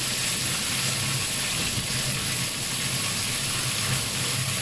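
Wet water spinach sizzling steadily in hot oil in a frying pan, just after the greens go in, with a steady low hum underneath.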